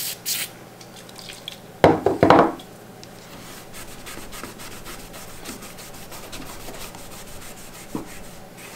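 Two short hisses of an aerosol can of CSM-3 degreaser sprayed onto a cotton pad, then a loud clatter about two seconds in. After that comes a long spell of brisk back-and-forth rubbing of the solvent-soaked cotton along a bare aluminum beam, in quick even strokes, degreasing its surface.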